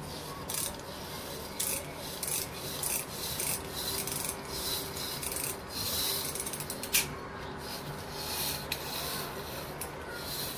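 Repeated rubbing and scraping as hands work the coiled steel mainspring of a Mayak table clock in its metal frame, with a sharp click about seven seconds in.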